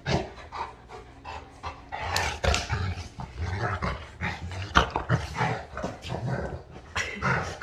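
Two golden retrievers, an adult and a puppy, play-fighting: a continuous low play growl under panting and scuffling, with a few short sharp yips and knocks.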